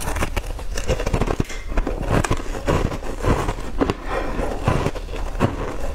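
Close-up chewing and crunching of a green-coated sweet ball: a dense, irregular run of small crackles and clicks from the mouth.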